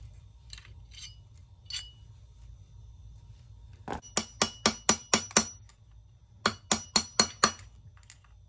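Hammer blows on metal at the clutch hub of a Yamaha Moto-4 350 engine: two quick runs of sharp, ringing taps, about seven and then about five, with light clinks of small parts before them.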